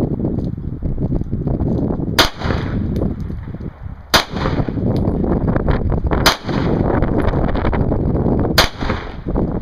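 Four single pistol shots from a Glock handgun, spaced about two seconds apart, over steady wind buffeting the microphone.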